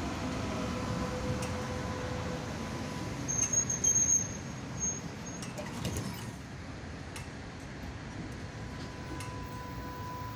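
A Melbourne B2-class articulated tram running past close by on its rails, with a steady rumble of wheels and motors. About three to four seconds in comes a brief, broken, high metallic squeal. After about six seconds the sound settles to a quieter steady hum.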